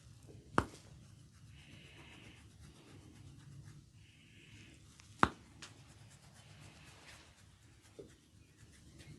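A barber's hands rubbing and working the scalp in a head massage, broken by two loud, sharp cracks about four and a half seconds apart and a fainter one near the end: hair cracking, tufts of hair pulled to snap.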